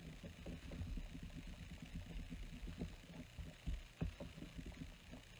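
Pen-style eraser rubbing back and forth over cardstock to erase pencil guidelines: faint, quick, uneven low scrubbing strokes.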